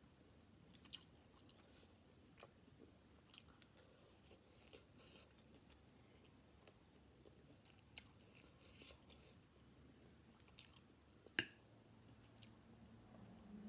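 Faint close-up chewing and mouth clicks of someone eating chicken chow mein noodles, with scattered small smacks and one sharper click near the end.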